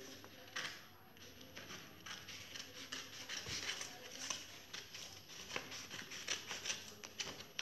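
Black chart paper crackling and rustling in short, irregular bursts as it is handled and cut to trim off the excess.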